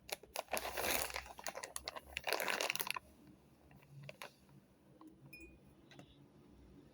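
Rustling and crunching of a cotton mop head being worked by hand, in two bursts within the first three seconds, followed by a few light clicks.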